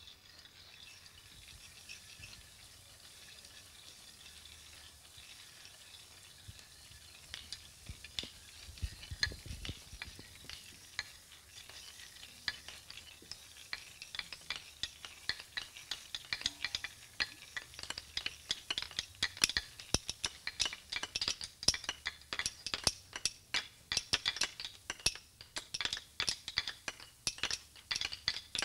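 Children's ensemble playing wheat sheaves, grain and small hand-held objects as percussion. A faint dry rustle at first, then sharp clicks and crackles join in about eight seconds in and grow denser and louder toward the end.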